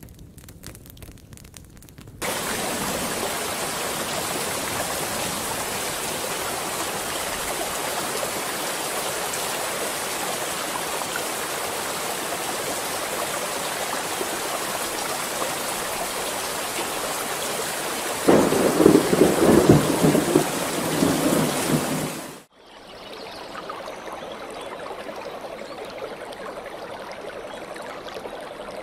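Heavy rain that comes in suddenly about two seconds in, after some faint crackling. A roll of thunder rumbles over it from about eighteen to twenty-two seconds in. It cuts off abruptly, and a quieter, steady sound of running water follows.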